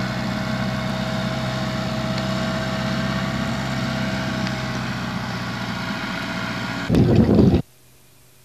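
Engine of a Schiltrac mountain transporter running steadily as it drives across a steep slope. Near the end comes a short, loud burst of noise, then the sound cuts off abruptly to a faint hum.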